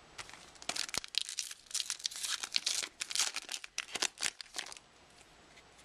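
A trading-card pack wrapper being torn open and crinkled by hand: a dense run of sharp crackles that starts about half a second in and stops a second before the end.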